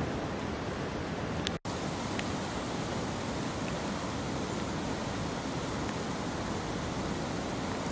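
Steady rushing of river water, an even, unbroken wash of noise. It cuts out for an instant about one and a half seconds in.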